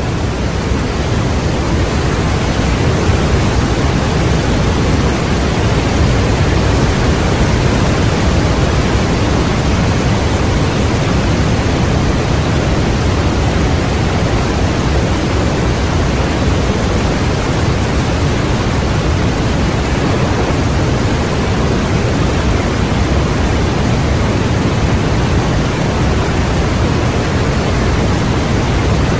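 Small waterfall pouring over rocks and crashing into the frothy pool below: a steady, loud rush of water.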